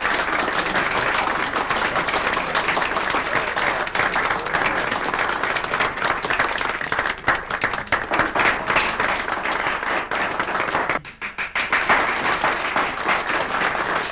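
Audience applauding, a dense steady patter of many hands clapping that briefly drops away about eleven seconds in.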